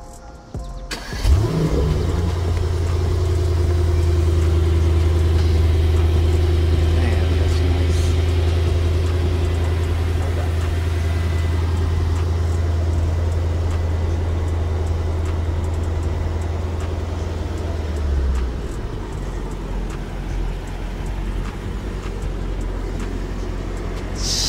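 A car engine starts with a quick rev flare, then runs at a steady idle with a strong low drone. The drone changes and eases off about 18 seconds in.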